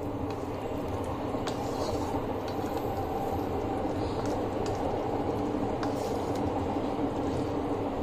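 Thick sauce simmering in a wok while a wooden spatula stirs it, with a few faint light taps of the spatula, over a steady hum.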